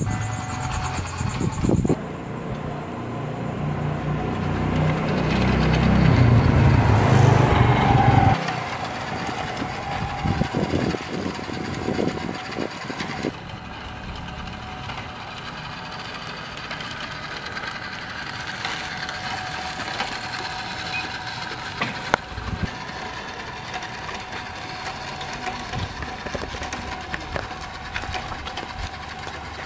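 Small electric motor and gearbox of a WPL D12 1/10-scale RC mini truck whining as it drives, with its tyres running over paving stones. In the first eight seconds a louder low rumble builds and then cuts off suddenly.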